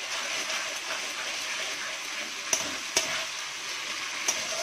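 Onion and spice masala paste sizzling as it fries in a steel wok while it is stirred with a spatula, which knocks sharply against the pan three times.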